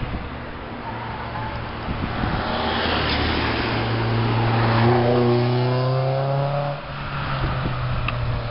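Toyota MR2 SW20 2.0 GTi's engine and exhaust under acceleration; the engine is a naturally aspirated four-cylinder. The note climbs steadily in pitch, holds, then drops sharply about seven seconds in before pulling on again.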